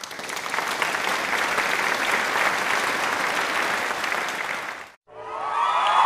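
Spectators clapping and applauding for about five seconds, ending in an abrupt cut. Just before the end a crowd of many voices starts shouting and cheering.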